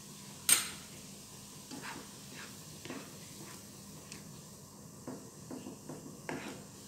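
Plastic slotted spatula stirring and scraping a simmering chili paste in a non-stick frying pan. It gives a sharp clack on the pan about half a second in, then a run of light taps and scrapes, over a steady low hiss.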